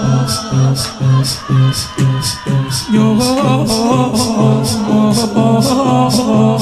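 Shia latmiya lament: male chanting in a mournful melody over a steady beat of sharp strikes about twice a second, the chest-beating rhythm of a shur.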